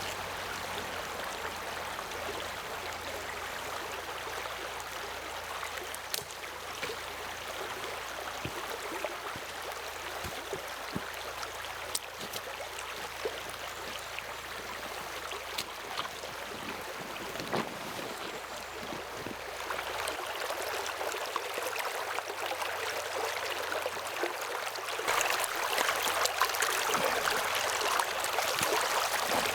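Small river running over rocks: a steady rush of flowing water that steps louder about two-thirds of the way in and again near the end.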